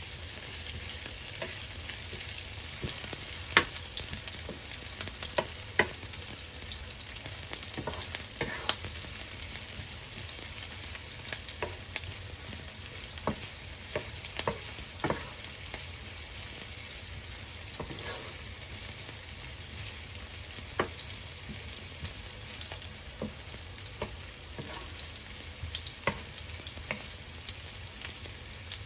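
Chopped onions sizzling in hot oil in a nonstick frying pan as a wooden spatula stirs them, with a steady hiss and scattered sharp clicks throughout.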